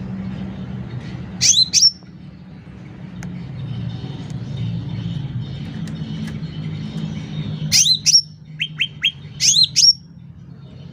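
Cucak ranting calling with sharp, loud, upward-sweeping notes. Two come about a second and a half in. Near the end comes a burst: two sweeping notes, three short quick notes, then two more sweeping notes, all over a steady low hum.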